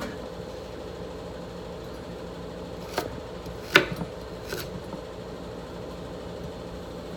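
A knife striking a cutting board while vegetables are chopped: three sharp, separate knocks, the first about three seconds in and the loudest a moment later, over a steady background hum.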